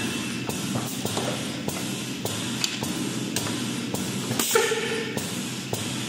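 Semi-automatic pneumatic aerosol filling and crimping machine working, with a steady hum and repeated sharp clicks. About four and a half seconds in there is a short, louder hiss of air.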